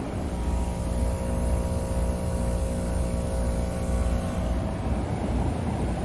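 Packaged heat pump running, its outdoor fan and compressor making a steady rumble with a hum of several tones that fades away near the end. The unit is short of R-410A charge from a leak.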